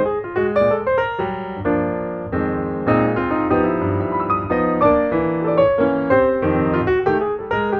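Background music: a piano playing a light melody over chords, with notes struck several times a second.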